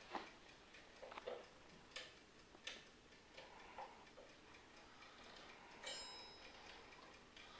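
Alarm clock ticking faintly, with a few sharper clicks and a brief high ringing tone about six seconds in.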